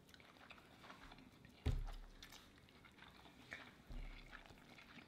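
Faint chewing and mouth sounds of people eating sandwiches, with a soft low thump about a second and a half in.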